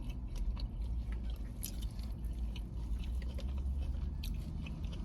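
A person chewing and biting food close to the microphone, many small wet clicks and crunches, over a steady low rumble.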